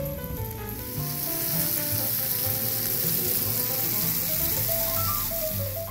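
Steak sizzling on a hot stone serving plate: a steady hiss that grows louder about a second in, with music playing underneath.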